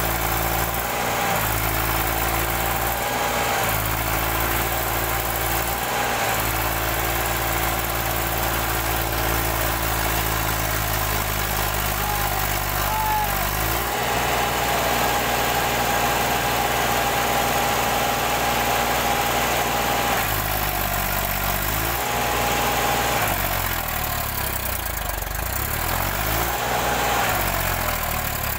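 Diesel tractor engine running under load, its speed stepping up and down several times as the tractor tries to pull a trolley loaded with straw out of mud.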